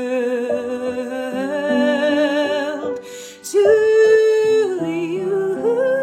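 A woman singing long held notes with vibrato over sustained instrumental accompaniment, with a short breath about three seconds in before the next note.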